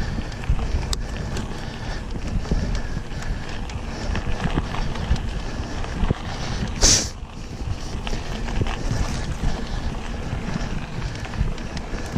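Wind buffeting an action camera's microphone over the rumble and rattle of a mountain bike rolling on a dry dirt trail, with small irregular knocks throughout. A short, sharp rush of noise about seven seconds in.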